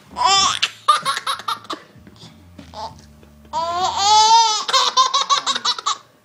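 Baby belly laughter: a high squeal right at the start, then a run of quick laughs. About three and a half seconds in comes a longer high-pitched squeal that bends in pitch, followed by another fast run of laughs.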